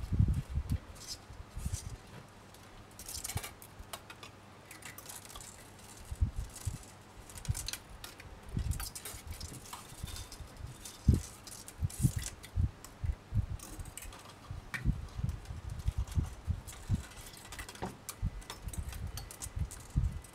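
Fine craft wire being wrapped by hand around a wire frame and pulled through: irregular light scratchy rustles with dull bumps at uneven intervals.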